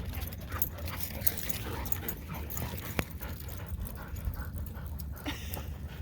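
Dog panting while moving about, over a steady low rumble.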